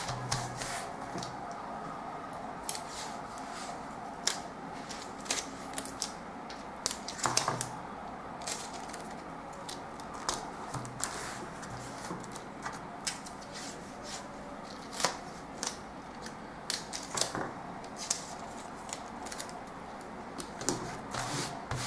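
Brown pattern paper rustling and crackling under the hands as the pieces are smoothed and taped down, in irregular small crinkles and clicks.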